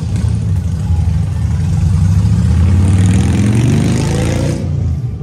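Car engine revving up, its pitch climbing steadily over a couple of seconds before it drops off suddenly near the end.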